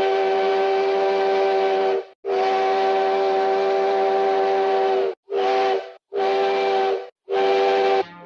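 Multi-chime steam locomotive whistle sounding a chord with steam hiss, in a sequence of blasts: a long one ending about two seconds in, another long one lasting about three seconds, then three short blasts close together. The pitch sags a little as each blast shuts off.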